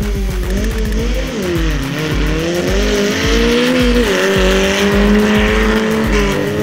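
Two 4x4 dirt drag racers accelerating hard at full throttle, their engine pitch climbing and dipping as they race. Background music with a steady kick-drum beat plays underneath.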